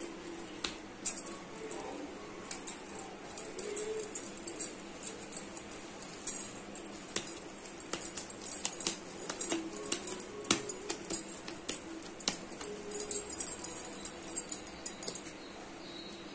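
Hands kneading and folding soft bread dough on a greased plastic rolling board, giving light, irregular clicks and taps throughout.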